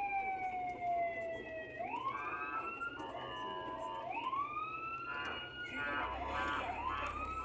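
Ambulance sirens wailing, heard from inside a car. The pitch falls slowly over the first couple of seconds, then sweeps up and down again about every two seconds, with more than one siren overlapping in the second half.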